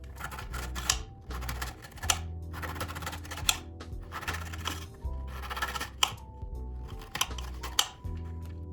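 Background music over a few irregular sharp knocks and crunches as crisp Biscoff cookies are cut up on a cutting board.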